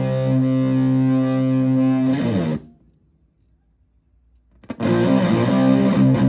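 Stratocaster through a Tone Bender MKI fuzz pedal with a filter, into a Twin Reverb-style amp: a fuzzy sustained chord rings and is cut short about two and a half seconds in. After a near-silent gap of about two seconds, fuzzed playing starts again with quick repeated picked chords.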